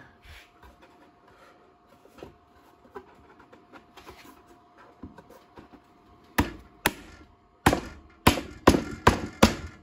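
A hand slapping the top of a pre-cut wooden bee box to seat the box-joint fingers of a side piece. After a few seconds of faint handling, about seven sharp knocks come from about six seconds in, getting quicker.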